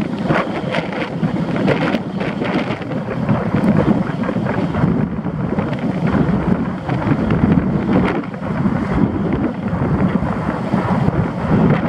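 Wind buffeting the microphone of a camera on the roof of a moving car, an uneven rush with constant short flutters, over the car's steady driving noise.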